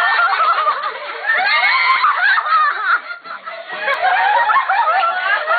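Several young women laughing hard together, high-pitched overlapping laughs, easing briefly about three seconds in before picking up again.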